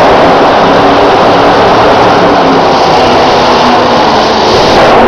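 Monster truck's engine running under heavy throttle, very loud and steady.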